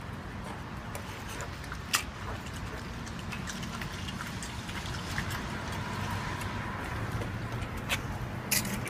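A pig chewing whole mandarin oranges, peel and all, from a steel bowl: wet munching with a few sharp clicks, the loudest about two seconds in and two more near the end.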